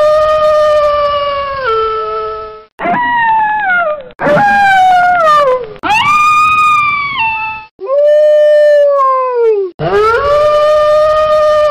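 Wolf howling: a run of long howls one after another, each rising into a held note and then sliding or stepping down in pitch.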